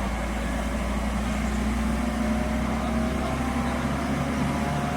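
Heavy diesel earthmoving machinery engine running steadily under load, with a faint whine that edges up in pitch in the second half.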